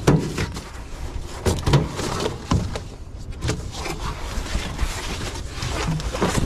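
Scattered knocks and thumps on a small boat's deck as a landed leopard shark flops on the floor mat and is handled, over a steady low rumble.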